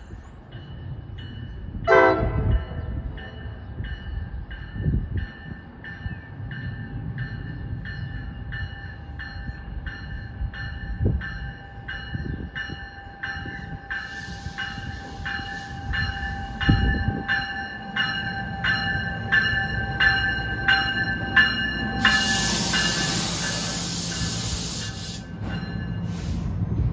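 Grade-crossing warning bell ringing about one and a half strokes a second while an NJ Transit diesel train approaches and runs through at track speed. Its rumble builds, with a loud hiss near the end as it passes.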